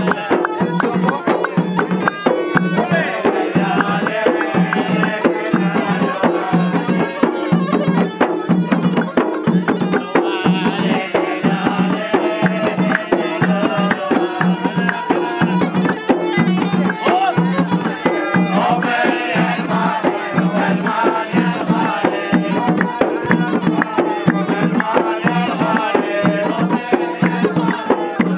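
Gulf folk music: a large double-headed drum beaten in a steady rhythm, with hand clapping, over a steady drone and a wavering melody.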